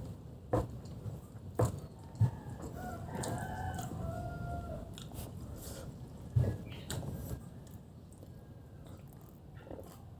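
Bites into crunchy fried chicken and chewing, with sharp crunches at irregular moments, most of them in the first seven seconds. Between about three and five seconds in, a long wavering call sounds in the background.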